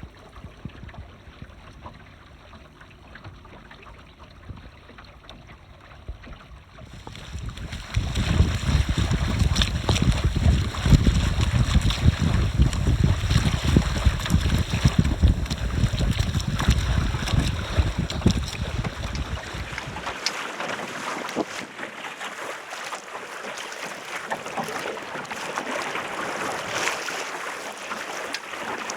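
Wind buffeting the microphone and water rushing past a small sailboat under sail. The sound is quieter at first, then a heavy wind rumble sets in about seven seconds in and drops away around twenty seconds, leaving a lighter hiss of water and wind.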